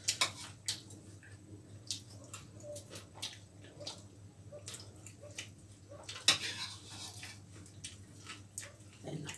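Eating sounds: wet chewing and mouth clicks, with soft scattered taps of fingers and a spoon on plates and a bowl, over a low steady hum.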